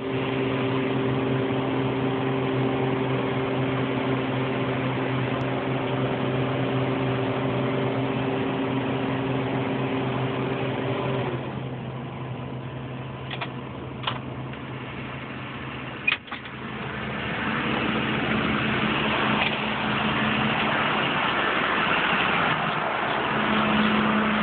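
Rogator 854 self-propelled sprayer's diesel engine running steadily. About eleven seconds in, part of its hum drops away and the sound gets quieter. A few clicks follow, with a sharp click about sixteen seconds in, after which the engine noise rises again with more hiss.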